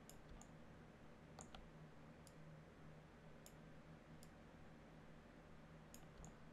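Near silence with faint, irregularly spaced computer mouse clicks, about nine in all, over a low steady hum.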